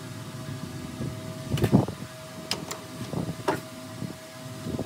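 Steady hum of shop machinery with a constant tone. Over it come several sharp clinks and knocks of metal tools and the aluminium part being handled at a metal lathe, the loudest a little under two seconds in. The footage runs at double speed, so the handling sounds come quick and close together.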